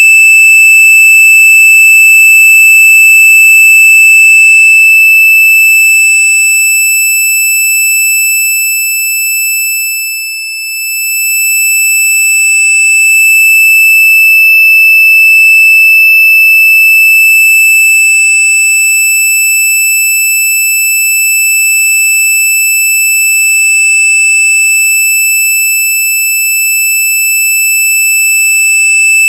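Loud, steady, high-pitched electronic tone held without a break, with fainter higher overtones above it; it dips briefly in loudness about ten seconds in. This is the piercing tone presented as the most annoying sound in the world.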